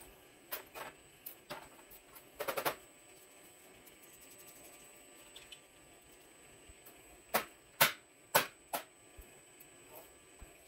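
Small metal parts of a Bosch diesel injector clicking against a stainless steel workbench as it is taken apart by hand. Scattered sharp clicks, a quick rattle of several about two and a half seconds in, and a few louder clicks later on.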